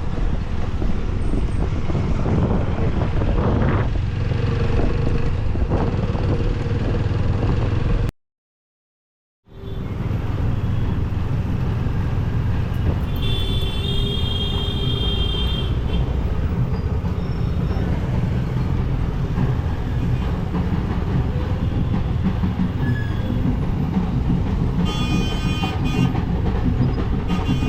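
Steady engine, road and wind rumble heard from a motorcycle riding through traffic, on the GoPro's own microphone. A vehicle horn honks for a couple of seconds about halfway through and again near the end, and the sound cuts out completely for over a second about a third of the way in.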